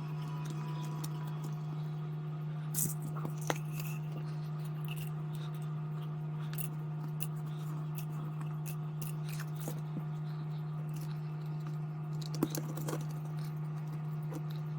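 A steady low hum, with a few small clicks and taps about three seconds in and again near the end.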